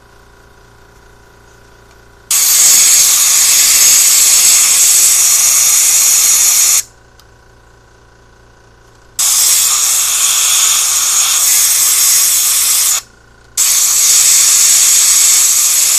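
Compressed air hissing from a blow gun through a carburetor passage in three long blasts of about four seconds each, the last two close together, clearing the passage from the opposite end.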